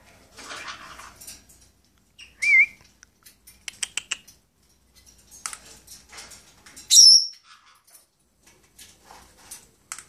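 Pet parrots calling: a short wavering whistle about two and a half seconds in and a loud, high-pitched call about seven seconds in, with scattered short clicks and chirps between them.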